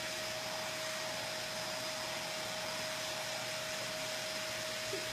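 Vacuum cleaner running steadily: a constant motor whine over a hiss of rushing air.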